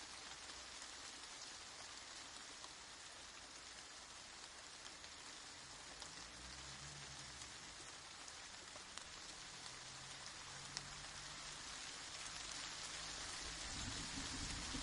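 Steady rain falling, an even hiss with scattered drops. A faint low rumble comes in about six seconds in, returns, and grows louder near the end.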